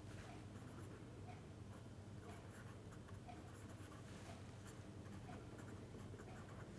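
Faint scratching of a felt-tip pen writing on paper, over a low steady hum.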